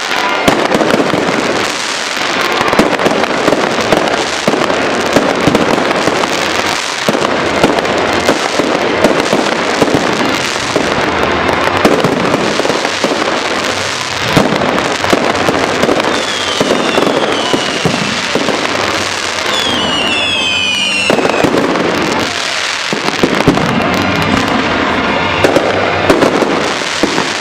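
Fireworks display in full barrage: a dense, continuous run of bangs and crackling. Several falling whistles cut through about two thirds of the way in.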